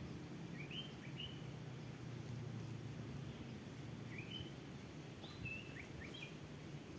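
A small bird calling in short rising chirps, mostly in pairs, about half a second in and again from about four seconds on, over a steady low hum.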